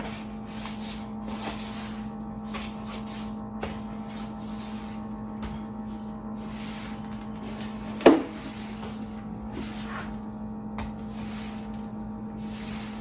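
Household cleaning sounds in a kitchen: a series of short hissing strokes over a steady low hum, with one sharp knock about eight seconds in.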